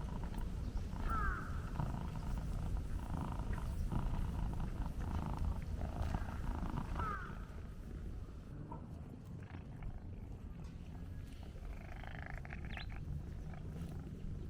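A tuxedo cat purring steadily at close range, fainter after about eight seconds.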